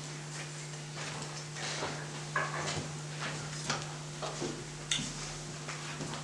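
Scattered light knocks, creaks and rustles as a person gets up from a metal folding chair and steps onto a cloth sheet spread on the floor, over a steady low hum.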